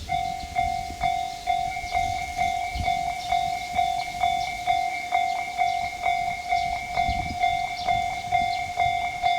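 Japanese railway level-crossing warning alarms start ringing about a tenth of a second in. It is the repeating electronic 'kan-kan' clang, a little over two strikes a second.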